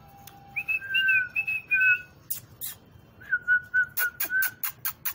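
A person whistling two short, slightly wavering notes, with sharp mouth clicks between them and a quick run of clicks near the end, calling young puppies.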